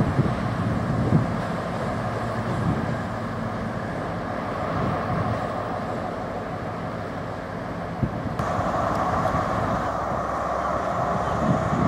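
CrossCountry Voyager diesel multiple unit running as it moves through the station, its engine rumble slowly fading. About eight seconds in the sound cuts to a GWR HST power car idling at the platform with a steady hum.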